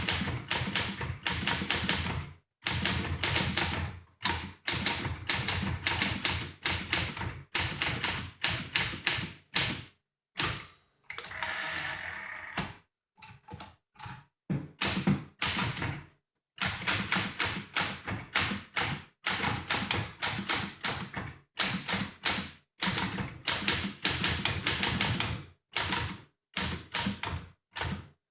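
1953 Tower Challenger manual typewriter being typed on in fast runs of key strikes. About ten seconds in the typing breaks for a short ring and a longer sliding sound, then picks up again.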